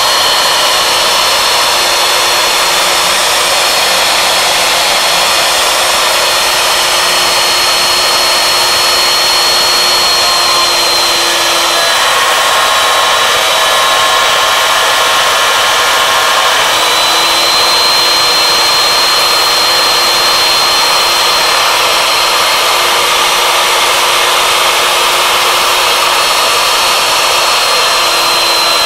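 Warthog CNC lathe's router spindle running at high speed while its end mill cuts a slot into a wooden post, a loud steady whine over cutting noise. The whine drops slightly in pitch about eleven seconds in, comes back up near seventeen seconds, and drops again near the end.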